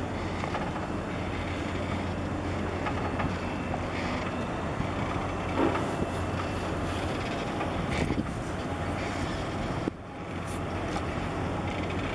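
Steady low drone of the passing container ship's and tugs' engines, with wind on the microphone; the sound drops briefly near the end.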